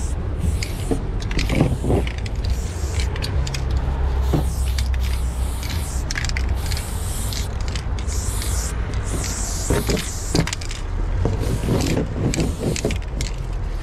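Aerosol spray-paint can hissing in repeated short bursts as black paint is sprayed onto an OSB board, over a steady low rumble, with a few knocks near the end.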